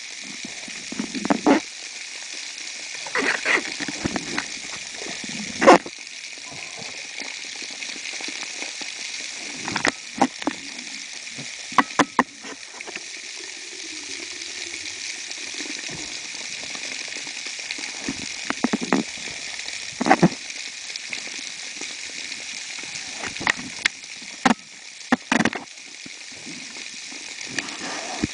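Underwater sound through a camera housing: a steady hiss of moving water, broken by scattered sharp clicks and knocks at irregular moments.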